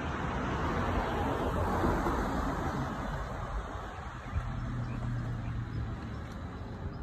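Road traffic: cars passing on the road beside the sidewalk, their tyre noise swelling to a peak about two seconds in and then fading, with a low steady hum for a second or two past the middle.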